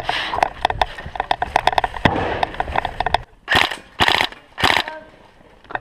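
Running footsteps and loose kit rattling, heard close on a body-worn camera, then about three seconds in three heavy breaths a little over half a second apart as the runner stops.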